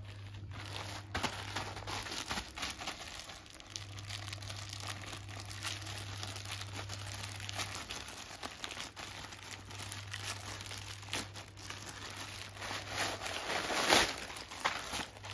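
Plastic courier mailer crinkling and tearing as it is ripped open by hand, the plastic-wrapped package inside rustling as it is handled. The crinkling is loudest about a second before the end, as the package is pulled out.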